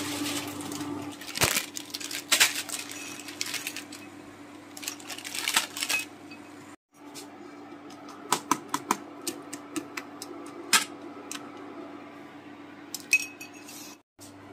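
A metal spoon clinking and scraping against an aluminium pot while instant noodles are stirred in boiling water, sharp clicks scattered throughout over a steady low hum.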